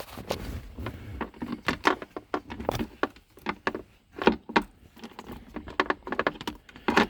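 Irregular clicks, taps and knocks of plastic console trim covers being handled and fitted around the shifter.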